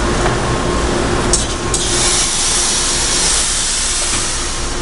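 Steel coil processing line running: a steady low rumble with a humming tone. Two sharp clicks come about a second and a half in, then a loud steady hiss from about two seconds in.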